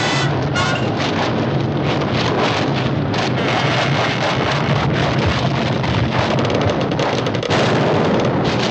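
Frantic cartoon soundtrack: a busy music score mixed with dense, rushing, clattering sound effects.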